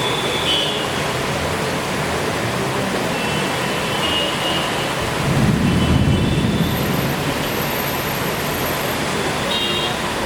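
Heavy rain falling as a steady, even hiss. A low rumble swells and fades about five to seven seconds in.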